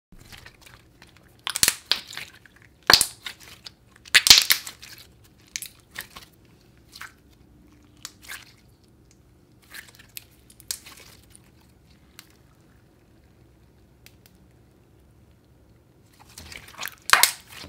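Thick clear slime being stretched, folded and squeezed by hand, giving irregular wet pops and clicks. They come thickly in the first few seconds, then sparsely, and bunch up again near the end.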